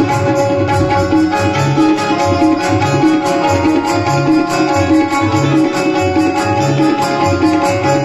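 Instrumental passage of a Marathi bhajan: hand drums keep a steady rhythm under a held melody from a sustained-tone instrument, with no singing.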